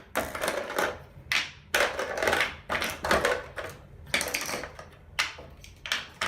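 Fisher-Price Baby's First Blocks, hard plastic toy blocks and their bucket, being handled: a string of irregular clacks and knocks of plastic on plastic.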